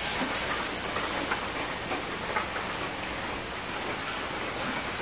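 Sausage sizzling as it fries in a small pot over a soda-can alcohol stove, a steady hiss with a few light clicks from a spoon stirring it.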